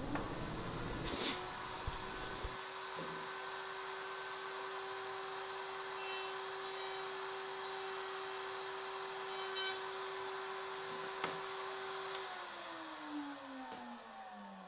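Table-mounted router running steadily, its bit cutting wood in short passes as the dovetail tails are fed across it to cut their back bevel, about a second in and again around six to seven and nine and a half seconds. About twelve seconds in the router is switched off and its pitch falls as it winds down.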